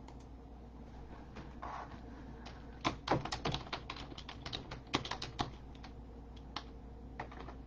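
Typing on a computer keyboard: a quick run of key clicks begins about three seconds in and thins out to a few last taps near the end.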